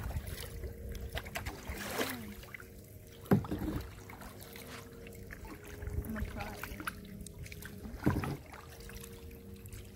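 Double-bladed kayak paddle dipping and pulling through calm water at an easy pace, a stroke every couple of seconds, with light splashes and drips; the sharpest splash comes a little after three seconds in.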